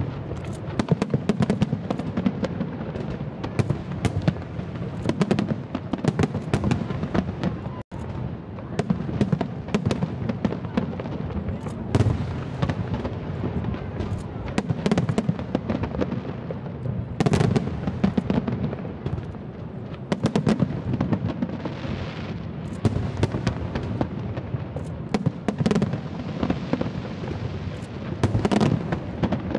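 Fireworks display: a dense, continuous run of sharp bangs and crackling bursts over a low rumble, broken by a brief dropout about eight seconds in.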